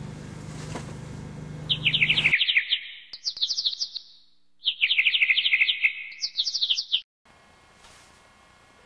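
Small bird twittering in four quick bursts of rapid, high-pitched trilled chirps, cutting off suddenly near the end. The chirps sit on dead silence with no outdoor background behind them, as a dubbed-in sound effect does. A steady low hum runs under the first two seconds before the chirping.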